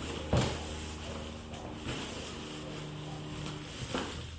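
Cardboard shipping box being handled and pulled at while a tightly fitted protein tub is worked out of it, rubbing and scraping, with one sharp knock about a third of a second in. A steady low hum runs underneath.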